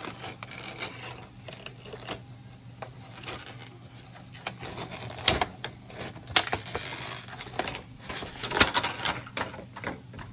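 Clear hard-plastic clamshell packaging crackling and clicking as it is pried apart by hand, with a few sharp snaps in the second half.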